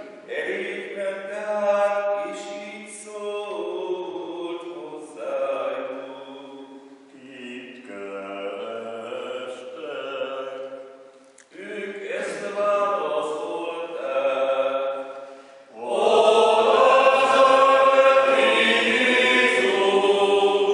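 A group of men singing a slow church hymn in phrases with short breaks. About two-thirds of the way through the singing grows louder and fuller.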